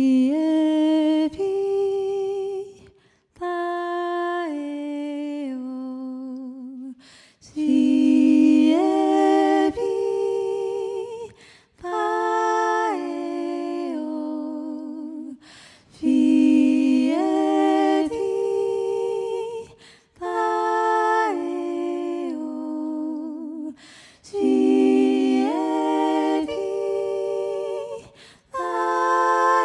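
Wordless vocal music: a voice humming slow phrases of held notes that step up and down in pitch. A new phrase begins about every four seconds, each starting abruptly after a short break.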